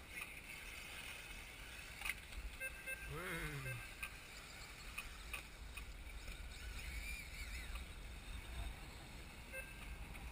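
Brushless electric 1/10-scale RC buggies racing, their motors giving faint high whines that rise and fall as they accelerate and brake, under a steady low wind rumble on the microphone.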